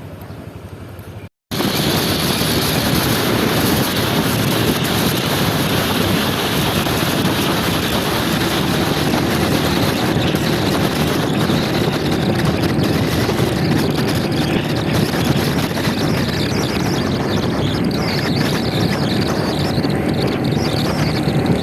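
Motor scooter being ridden along: a steady engine drone buried in wind rushing over the microphone. It cuts in abruptly after a brief silent break about a second in.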